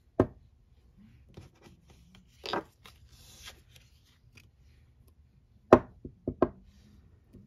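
Nail-stamping tools being handled and set down on a tabletop: a handful of sharp knocks and taps, the loudest ones near the end, with a brief scraping rasp about halfway through.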